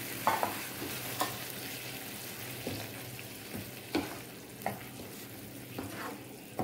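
Tomato puree and fried onions sizzling in a non-stick frying pan as a plastic spoon stirs and scrapes through them. There are short, sharp knocks of the spoon on the pan, the loudest about four seconds in, and the sizzle eases off a little.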